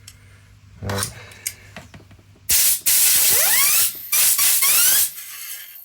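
Two blasts of compressed air from an airline at a chainsaw guide bar's sealed nose sprocket, the spinning sprocket giving a rising whine over the hiss each time. The sprocket doesn't sound the best: it is running dry.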